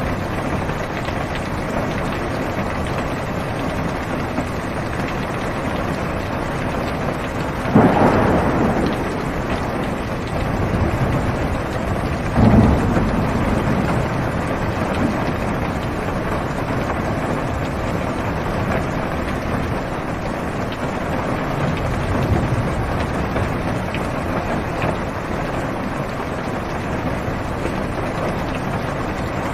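Steady rain falling on a car's roof and windows, heard from inside the car, with thunder: a sudden loud clap about eight seconds in, a second, lower clap about four seconds later that rumbles off, and a faint rumble later on.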